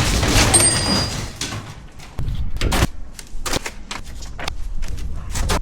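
A noisy rush for about the first second, then a run of sharp knocks and bangs at irregular intervals, about a dozen in all.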